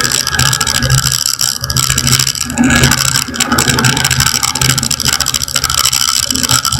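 Light aircraft's engine and propeller droning steadily in flight, with a constant rushing hiss over it.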